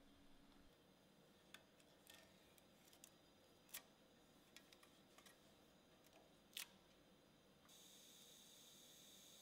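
Near silence: faint room tone with a few soft, sharp clicks, then a steady faint hiss setting in near the end.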